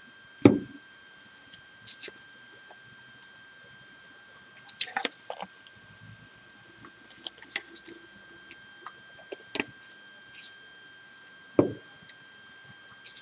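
Small plastic bottle of brown craft paint handled and squeezed out onto a plate: scattered small clicks and knocks of the bottle and plate, the louder ones about half a second in and near the end.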